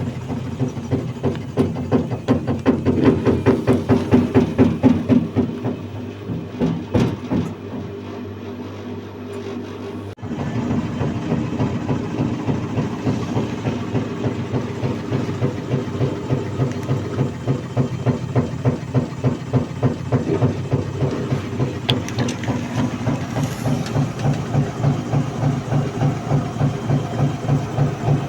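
Midea top-loading washing machine's drum knocking rhythmically, a few knocks a second, as it picks up speed. The drum is striking the shipping-bolt bushings that were left in place. The knocking eases for a few seconds in the middle, then returns strongly.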